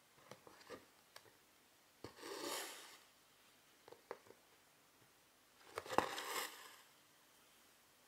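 Small clicks of a needle going through 11-count cross-stitch fabric, and twice a longer rustle as silk thread is pulled through. The second rustle starts with a sharper click.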